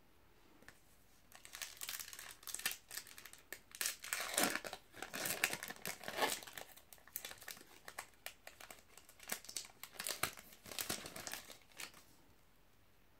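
Foil-lined trading-card booster pack wrapper being torn open and crinkled in the hands: a run of crackling rustles starting about a second in and stopping about a second before the end.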